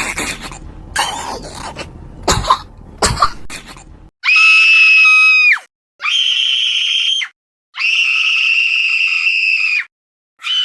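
Rough coughing and rasping sounds for about four seconds, then three long, high-pitched screams, each held at a steady pitch and cut off sharply, with dead silence between them.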